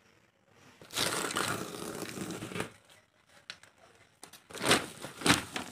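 Woven plastic fish-feed sack being pulled open by hand: a stretch of crinkling and tearing, then quieter rustling and two sharp crackles of the plastic near the end.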